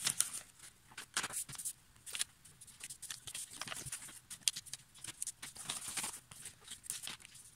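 A sheet of paper being folded by hand on a wooden tabletop, each side turned in to the middle and pressed flat: irregular rustles and crisp swipes of fingers running along the creases, with light taps against the table.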